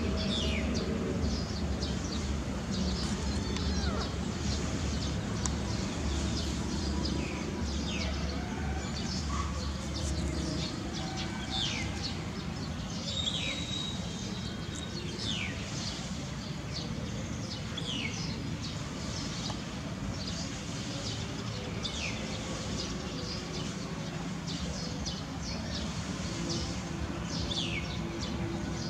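Birds calling outdoors: short, high chirps that fall in pitch, repeated every second or two over a steady background hum.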